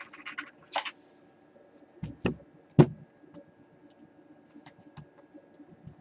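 Handling noise: a brief rustle, then a few sharp knocks and clicks, the loudest a little under three seconds in, with fainter clicks later.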